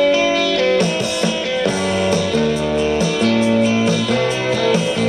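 Music playing from the radio of a Sanyo M7900K portable boombox, heard from its speakers: held chords that change every second or so.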